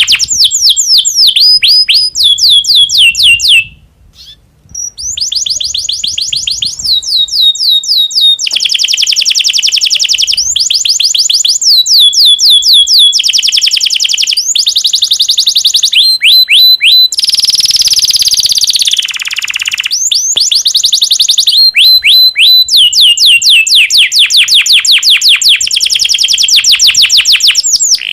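Male domestic canary in breeding condition singing: long runs of rapid repeated trills, phrase after phrase, with a brief pause about four seconds in.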